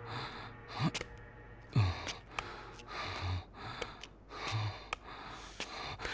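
A man breathing hard in a series of heavy, gasping breaths, roughly one a second.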